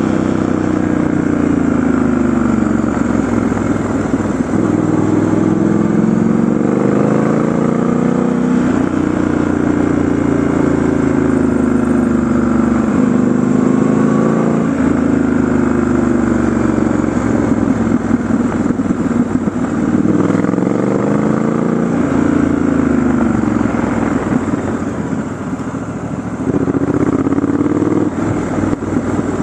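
Triumph Scrambler 1200 XE's parallel-twin engine heard from the rider's seat while riding, its pitch climbing under throttle and dropping back again and again. It eases off briefly near the end, then picks up again.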